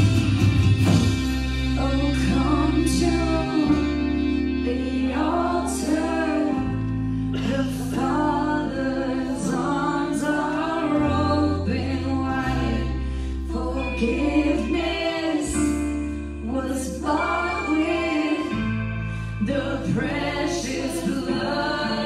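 Live worship band playing a contemporary Christian song: women singing lead and harmony over electric guitars, keyboard and drums, with the bass holding long notes that change every few seconds.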